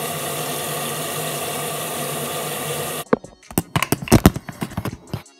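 Bathroom sink tap running steadily, shut off about three seconds in, followed by a quick irregular run of scrubbing strokes as teeth are brushed with a manual toothbrush.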